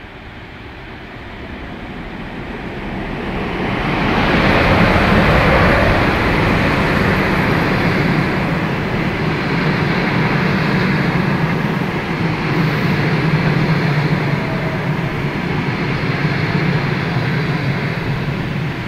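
CHS6 electric locomotive drawing a passenger train into the station: it grows louder over the first four seconds or so as the locomotive nears and passes close by. A steady rumble and clatter of coach wheels on the rails follows as the carriages roll past.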